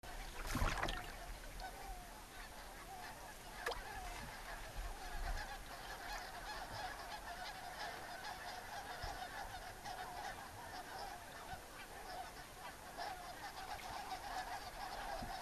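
A large flock of geese calling all at once: a continuous chorus of many overlapping honks. A sharp knock sounds about half a second in, and a lighter tap at about four seconds.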